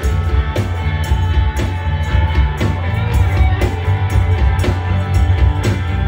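A live rock band playing through a PA: electric guitars, bass guitar and a drum kit keeping a steady beat of about two hits a second.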